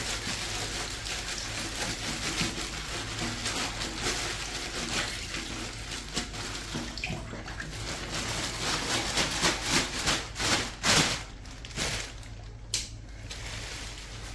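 Water running from a tap while an item is rinsed and washed by hand, with a few sharp knocks of it being handled about ten seconds in.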